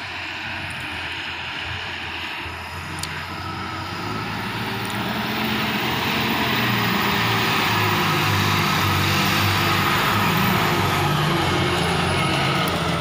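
Ashok Leyland 2518 tipper truck's diesel engine running as the truck drives along a rough dirt track toward and past the listener, growing louder from about a third of the way in and staying loud until near the end.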